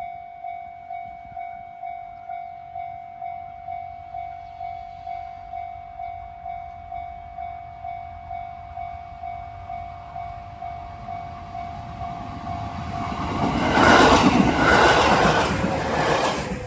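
Japanese level-crossing warning bell dinging steadily about twice a second. Near the end a train rushes loudly past the crossing, drowning the bell.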